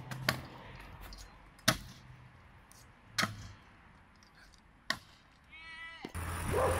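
Stunt scooter knocking down on paving stones: four sharp knocks about a second and a half apart, the loudest near two seconds in. From about six seconds in, steady street noise takes over.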